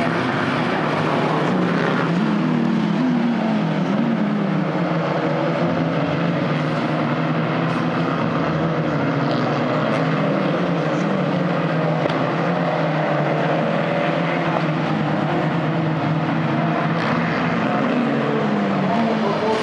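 Abarth 500 Assetto Corse race cars' 1.4-litre turbocharged four-cylinder engines running hard as the cars lap the circuit. The engine note is loud and continuous, and its pitch rises and falls with throttle and gear changes.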